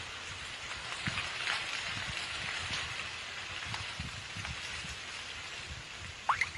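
A steady hiss with faint crackling through it, part of a cartoon fight's sound effects, with a short rising tone near the end.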